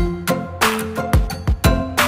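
Background music with a steady drum beat, about two beats a second, under held instrumental notes.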